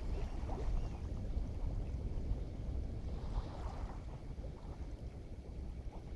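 Wind rumbling on the microphone over the wash of waves along the shore, a steady, uneven low rumble.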